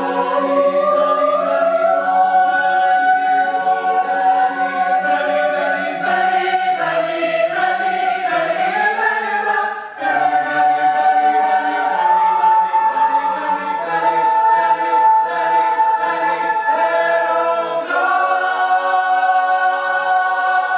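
Mixed-voice choir singing sustained chords, with a short breath break about ten seconds in, closing on a held final chord that is released at the very end.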